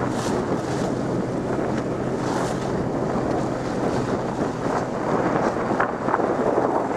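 Wind buffeting the microphone over water rushing along a sailboat's hull, with a faint steady low hum underneath.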